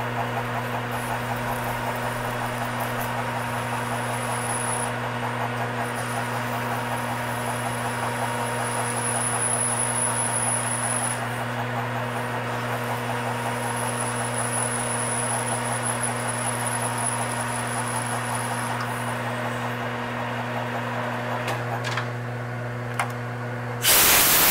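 Metal lathe running while a hand-fed high-speed steel tool cuts a deep groove in stainless steel: a steady motor hum under rough cutting noise, with a high-pitched whine from the cut that comes and goes. Near the end a short, loud blast of compressed air clears the chips.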